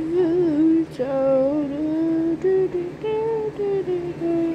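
A woman humming a tune in held, gliding notes, which stops at the very end. Under it runs the steady hum of an electric fan.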